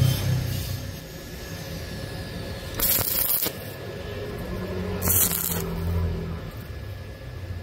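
Stick-welding arc crackling in two short bursts, each about half a second and about two seconds apart: two tack welds fixing a steel flat bar to a steel channel. A low rumble fades away in the first second.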